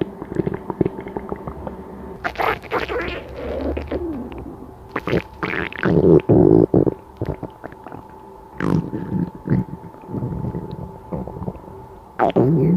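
Stomach growling: irregular rumbles and gurgles, some of them squeaky, with louder bursts about two and a half, five and six seconds in and a quick falling squeak near nine seconds.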